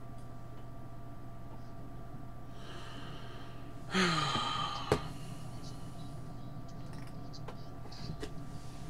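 A man sighs heavily about four seconds in, a breathy exhale with a brief voiced part falling in pitch. It is followed at once by a single sharp click, over a steady electrical hum.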